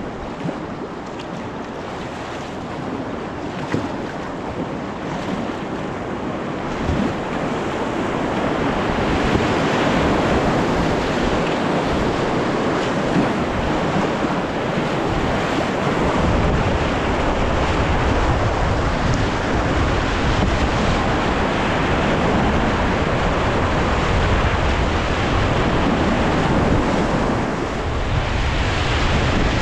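Whitewater rapids of a mountain river rushing steadily, getting louder about a third of the way in, with wind buffeting the microphone and adding a low rumble in the second half.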